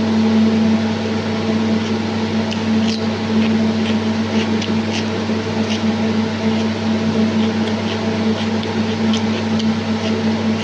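Steady electric hum of a fan motor, with short irregular clicks and smacks of eating and chewing starting a couple of seconds in.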